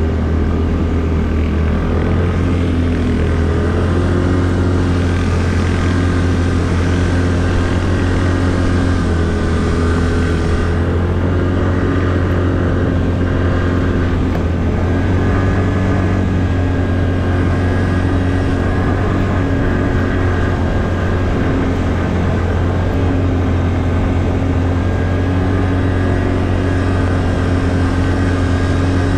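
ATV engine running steadily while being ridden, its pitch rising and falling only slightly.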